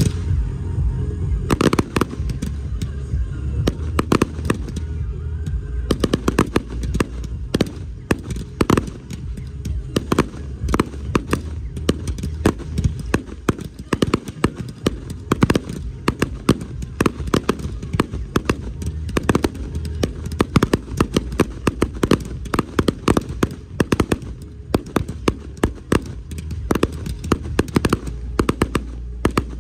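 Fireworks display: aerial shells and crackling stars bursting in a dense, rapid string of sharp bangs and crackles, many a second, over a continuous low rumble.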